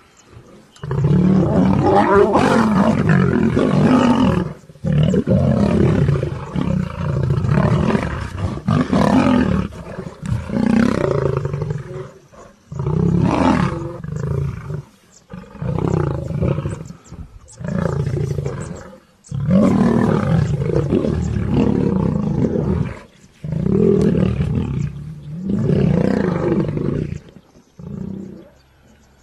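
Lions roaring and snarling in about a dozen loud, rough bouts of one to three seconds each, separated by short pauses.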